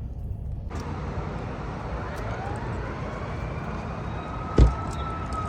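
Steady road traffic noise with a distant siren wailing, its pitch slowly rising and falling. A single dull thump comes near the end and is the loudest sound.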